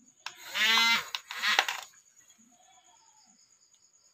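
A voice gives two short calls, one after the other, in the first two seconds, over a faint, steady high-pitched whine.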